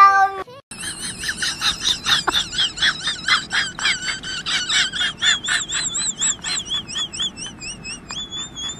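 A cat's meow trails off and falls in pitch at the very start. Then comes a steady run of short, high-pitched chirping animal calls, about three a second, which waver up and down in pitch near the end.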